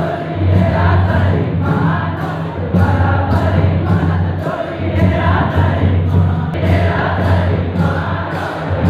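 Group singing of a tribal Karam dance song over drumming, with a sharp percussion beat about twice a second.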